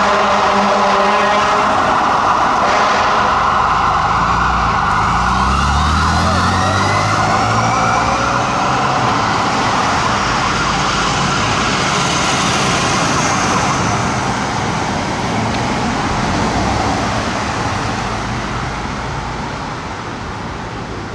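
A fire engine's siren wails as the pumper drives off on a call, with pitch glides rising between about four and nine seconds in. A steady blaring horn tone sounds during the first second or so. The siren fades toward the end.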